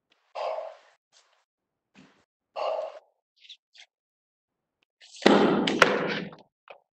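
A person's breath and short, quiet vocal sounds, then a loud, noisy burst of breath close to the microphone about five seconds in, lasting about a second.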